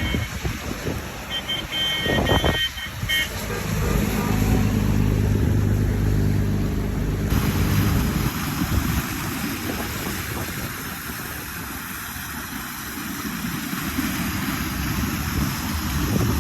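A motor vehicle's engine running, loudest for a few seconds in the first half, over a steady rushing noise.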